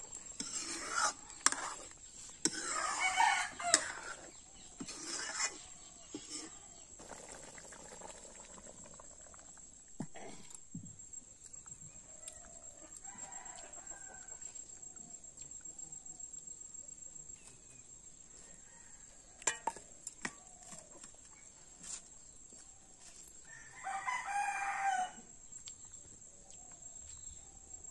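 Rooster crowing twice, once about three seconds in and again near the end, over a steady high-pitched insect trill and a few scattered knocks.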